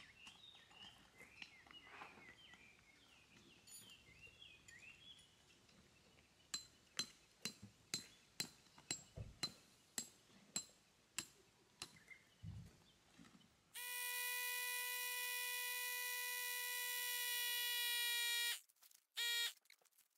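Electric air pump inflating an inflatable tent: a steady hum that cuts off suddenly and comes back in one short burst. Before it, birds chirping faintly and a run of about a dozen sharp clicks, roughly two a second.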